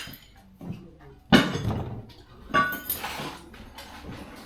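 Loose metal motorcycle parts clinking and clanking as they are handled and fitted loosely together. There is one sharp clank about a second and a half in, then a few shorter knocks with a brief metallic ring.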